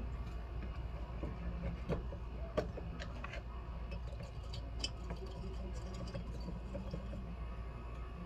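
A few light clicks and taps of small items being handled at a jeweler's bench, over a steady low hum.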